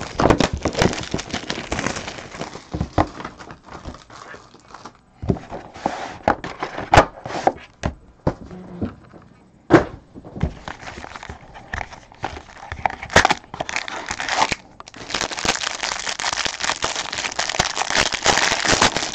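Hands opening a trading card box and pack: scattered clicks and knocks of cardboard and packaging being handled, then about four seconds of steady crinkling and tearing near the end as the pack's wrapper is torn open.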